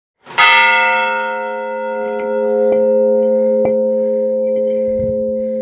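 A bell struck once just after the start, ringing on in a long slow decay of several steady tones, with a couple of faint clicks while it rings.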